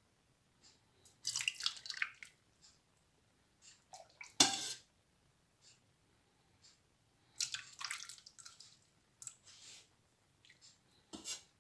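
Soup being ladled from a pot into a plate with a metal ladle: broth splashing and pouring in two stretches, one a second in and one about seven seconds in. A sharp knock of the ladle, the loudest sound, comes at about four and a half seconds, and another near the end.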